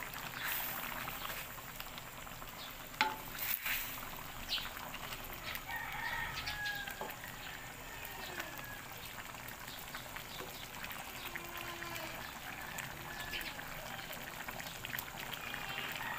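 Chicken adobo bubbling and sizzling in its sauce in a steel wok, with a wooden spatula scraping and knocking against the pan as the pieces are turned; one sharper knock about three seconds in.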